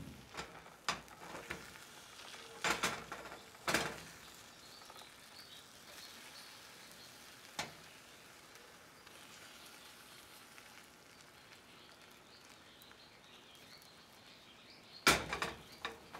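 Beaten eggs frying in a nonstick pan with a faint steady sizzle, as a slotted metal spatula scrapes and knocks against the pan a few times, loudest about 15 seconds in.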